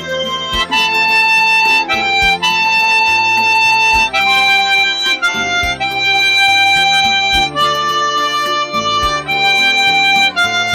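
Harmonica playing a slow melody in sustained, held notes over a backing accompaniment with low bass notes.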